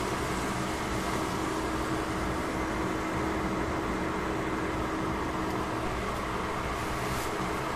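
A steady mechanical hum and hiss with one constant low tone, unchanging throughout.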